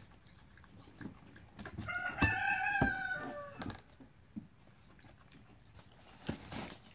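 A rooster crows once about two seconds in, a pitched call lasting about a second and a half that drops at the end. Around it, a macaque rustles and knocks about in a cardboard box.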